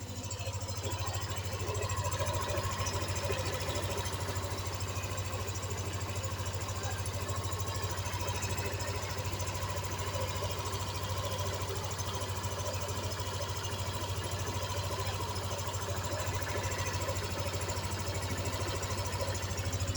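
A brand-new Yamaha NMAX 155 scooter's single-cylinder engine idling steadily.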